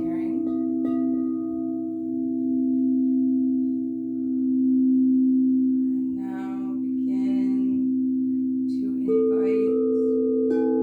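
Singing bowls ringing with long, steady, overlapping tones. About nine seconds in, a bowl is struck again and a new, higher tone joins.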